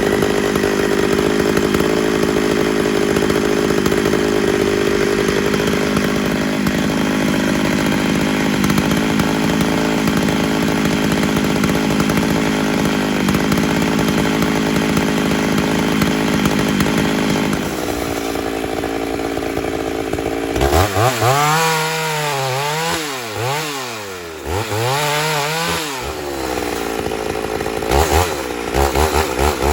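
Ported 82cc Homelite Super XL-925 chainsaw held at full throttle in a cut through red oak, its engine note steady for about eighteen seconds. Then it revs up and down several times and gives quick throttle blips near the end.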